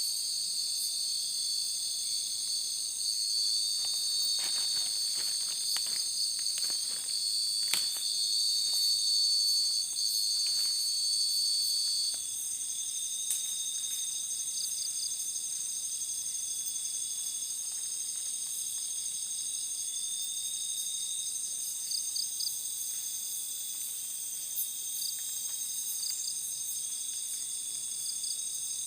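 Chorus of insects: several steady high-pitched trills layered together. The loudest stops about twelve seconds in, leaving a pulsing trill, with a few faint clicks in the first eight seconds.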